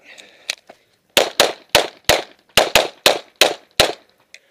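A quick string of about nine 9mm Glock pistol shots, some fired in fast pairs, ending a little before the end.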